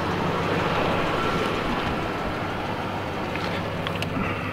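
Idling 2003 Dodge Ram 2500 Hemi V8 with its newly replaced electric condenser fan running: a steady hum and rushing air that eases slightly in level. A couple of light clicks near the end.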